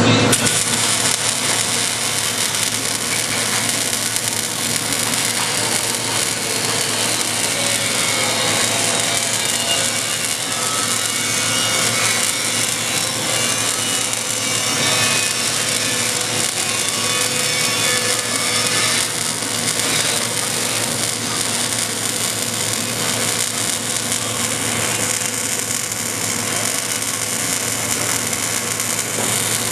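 Stick (arc) welding arc running steadily without a break as a weld is run across a 4 mm gap.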